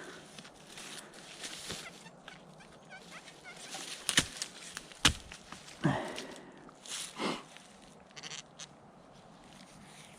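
Metal detector giving a short, high target tone as a dug plug of soil is checked for the buried piece, with two sharp knocks of the digging tool a second apart just before it.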